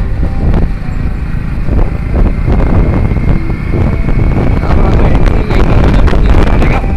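Wind buffeting the microphone of a moving Hero Splendor motorcycle, with the bike's engine running underneath at a steady pace.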